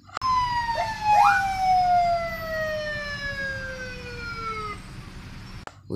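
Toy police car's electronic siren sound: one long wail falling slowly in pitch over about four and a half seconds, with two short rising chirps about a second in.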